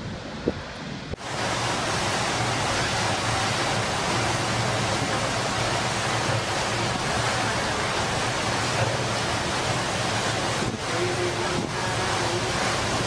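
A steady, loud rush of storm wind and surf, starting abruptly about a second in.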